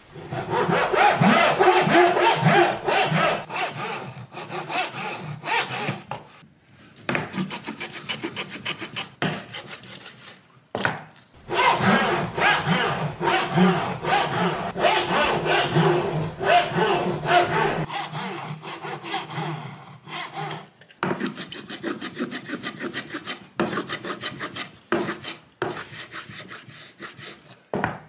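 Japanese backsaw (dozuki) cutting small wooden kumiko strips held in a wooden jig, in rapid short strokes. The sawing comes in several runs with brief pauses between them.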